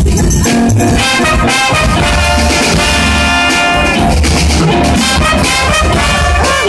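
Live jazz band with a brass horn section playing the melody together over upright bass and drum kit. The horns come in about a second in and hold long notes.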